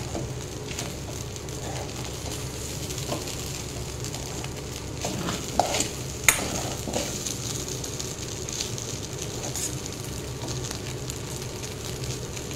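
A metal spoon stirring and turning poha in a stainless steel pan over a steady frying sizzle. The spoon scrapes and clinks against the pan now and then, with one sharp clink about six seconds in.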